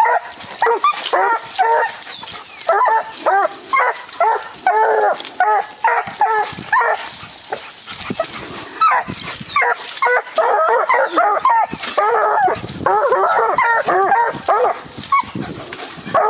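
Two Black and Tan coonhound pups barking and yipping at a treed raccoon, short excited barks coming several times a second with hardly a break: young hounds treeing.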